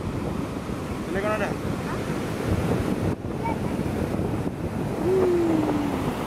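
Surf breaking on the beach, with wind buffeting the microphone. A brief voice comes about a second in, and a drawn-out tone falls slowly in pitch near the end.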